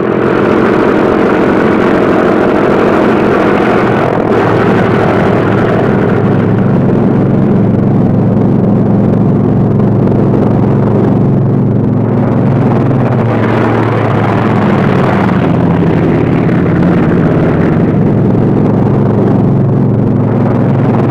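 Two P-47 Thunderbolts' Pratt & Whitney R-2800 radial engines running at high power for the takeoff run. A loud, steady drone whose pitch shifts a little partway through.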